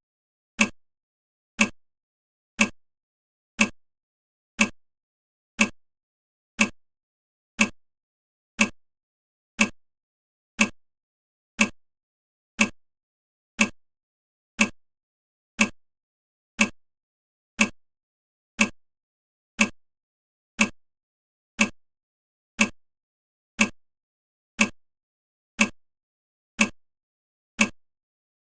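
Countdown timer's clock-tick sound effect: one short tick every second, steady and evenly spaced.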